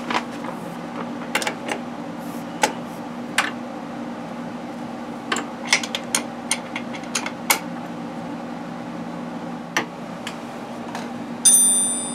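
Hand tools on metal: scattered clicks and taps as a ratchet works the mounting bolt of a new rear shock on a BMW K1200LT, with a single ringing metal clink near the end. A steady low hum runs underneath.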